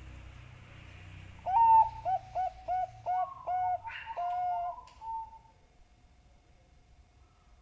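Zebra dove (Bangkok perkutut) cooing. A loud first note opens a quick run of short, evenly spaced coos, which ends in a longer drawn-out coo; the phrase lasts about four seconds.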